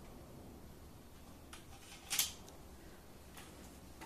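A few small clicks and rustles of hands handling a plastic Cheerson CX-20 quadcopter and its cables, the loudest a short sharp click a little after halfway.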